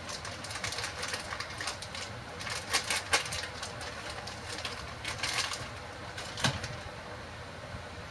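Plastic bag of shredded mozzarella crinkling and rustling in irregular crackles as the cheese is shaken out over a pizza, over a steady low hum.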